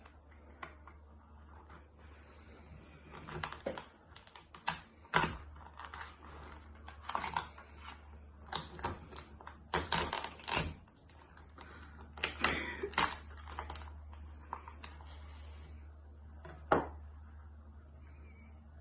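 Cooked lobster shell cracking and crackling in irregular bursts of sharp clicks as it is pried apart by hand, with a single louder crack near the end.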